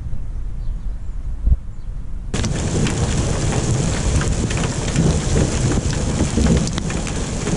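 Thunderstorm: a low thunder rumble, then, from about two seconds in, heavy rain cuts in suddenly, with many close raindrops striking over the continuing rumble of thunder.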